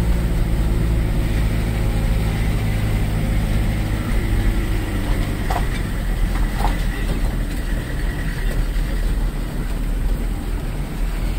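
Car engine running, heard from inside the cabin while driving a muddy lane: a low, steady hum that about four seconds in turns into a rougher, uneven low rumble as the car goes over the rough track.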